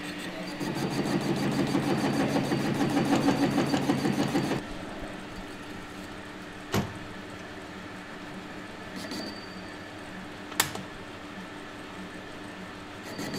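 Metal-turning lathe running with a part spinning in its chuck: a rough, fluttering cutting noise for the first few seconds as the tool takes a cut, then the lathe running more quietly and steadily, with two sharp clicks in the later part.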